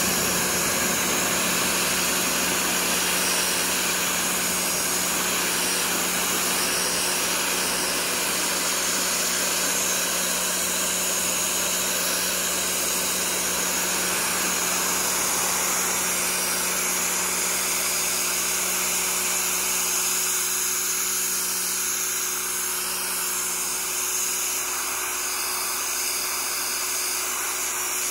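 Pressure washer running steadily: a constant pump hum under the hiss of the high-pressure water jet blasting dirt off the hull of an upturned Ram-X 15 canoe.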